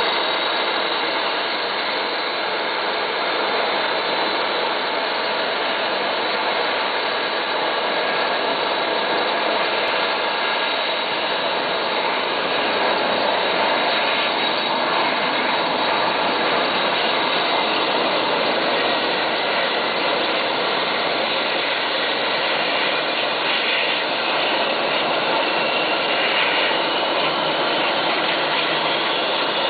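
Boeing 737-200's Pratt & Whitney JT8D turbofan engines running on the ground, a loud steady jet noise with a high whine. Near the end the whine rises in pitch.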